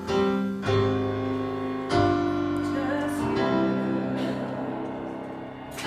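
Piano playing slow, sustained chords. Four chords are struck and each is left ringing and fading, like the closing bars of a song.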